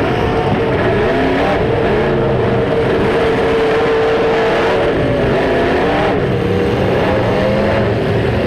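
Several demolition derby car engines revving at once, their pitches rising and falling over one another without a break.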